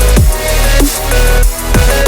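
Background music: an electronic hip-hop track with heavy bass and a steady beat, in a gap between rap verses.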